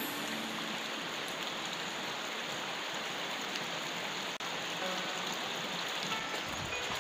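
Steady rain falling on water and wet ground, a continuous even hiss, broken once by a split-second gap a little past halfway.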